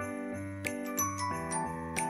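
Light background music of bell-like mallet percussion, glockenspiel or xylophone notes, over a soft bass pulse.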